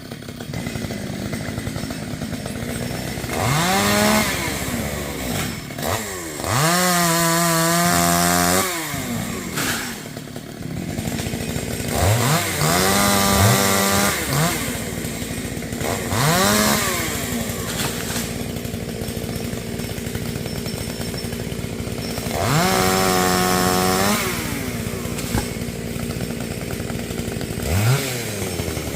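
Two-stroke chainsaw cutting melaleuca wood, revved up to full throttle about six times, each burst held for a second or two before dropping back to idle.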